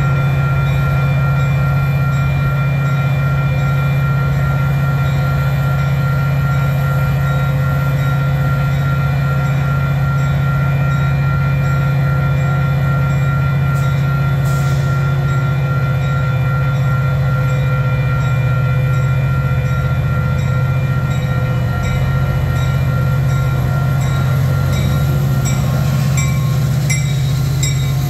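EMD F40PH diesel-electric locomotive running in a steady, loud drone as it pulls a commuter train out of the station and passes close by near the end, with a bell ringing about twice a second.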